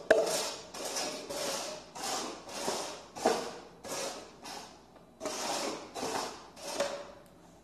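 Plastic cups being slid and scraped across a hardwood floor as they are shuffled. The short swishing scrapes come about two a second and stop near the end.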